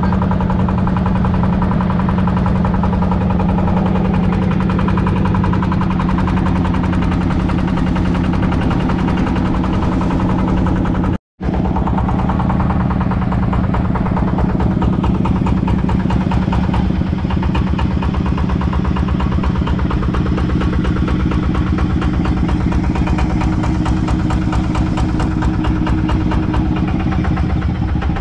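Small fishing boat's engine running steadily under way, with the wash of the hull through the water. There is a momentary gap about eleven seconds in, after which the engine carries on.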